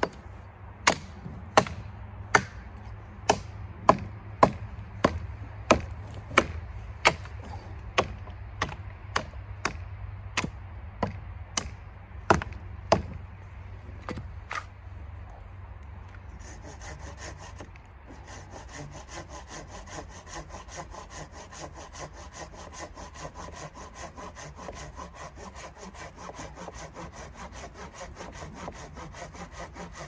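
A small hatchet chopping branches off a fallen pine, sharp wooden chops about two a second. The chopping stops about halfway through. Then a folding pruning saw cuts through a pine branch in quick, even back-and-forth strokes.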